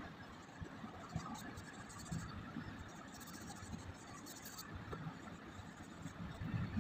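A hand brushing across drawing paper in a few short passes, with low bumps from handling the sheet.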